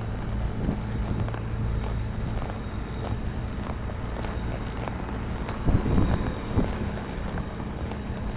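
A horse walking on a dirt path, its hooves landing in soft, even knocks about every half second, over wind on the microphone and a steady low engine hum. A louder bump comes about six seconds in.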